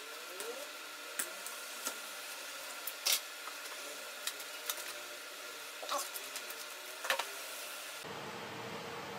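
Scattered small clicks and taps of a screwdriver and small parts against a laptop's metal case as the battery is unscrewed and taken out, over a steady hiss.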